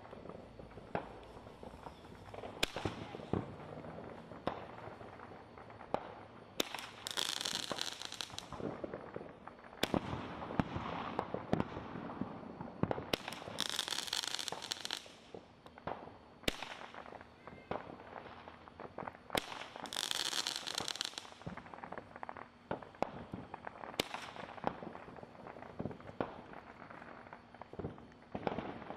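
Fireworks going off: many sharp bangs and pops scattered throughout, with three longer high-pitched bursts about six seconds apart.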